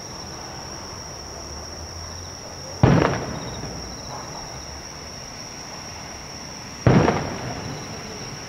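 Two aerial firework shells bursting in the distance, about four seconds apart, each a sudden boom that trails off over about a second.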